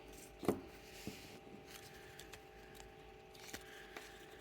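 Faint handling noise from a wristwatch being turned over in the hand: a light click about half a second in, then a couple of softer ticks, over a low steady hum.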